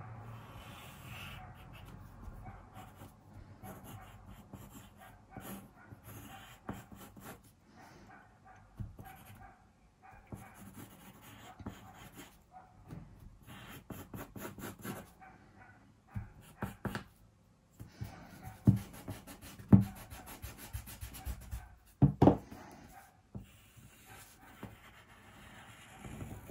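Pencil sketching on paper: bursts of short scratchy strokes as the lead drags across the sheet, with a few sharper knocks on the desk past the middle.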